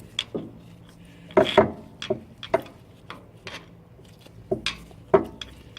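Metal clicks, clinks and knocks from hand tools and a hose clamp being worked onto a rubber fuel hose, about a dozen irregular strikes with the loudest cluster about a second and a half in.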